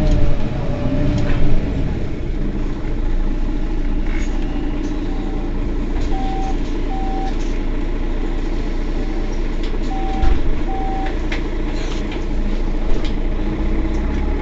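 Mercedes-Benz Citaro city bus idling at a stop, its engine running steadily. From about four seconds in, short electronic beeps at one pitch sound in pairs, a pair every couple of seconds, with a few light clicks.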